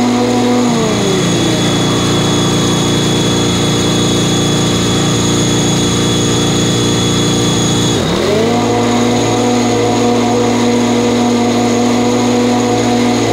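Commercial stand-on mower's engine running with the blades cutting. About a second in, its pitch slides down and stays low and rough for several seconds. About two thirds of the way through it dips sharply, then climbs back to a steady higher speed.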